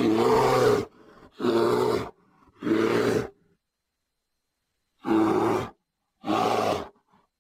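Bear roaring: five short roars, three in quick succession, then a pause of over a second before two more.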